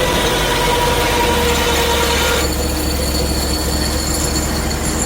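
Portable band sawmill running, its blade and engine making a steady whine over a low hum; about halfway through the whine jumps to a higher pitch.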